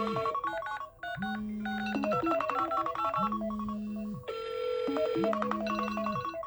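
iPhone playing a melodic ringtone: a short phrase of electronic notes over a low held note, repeating about every two seconds.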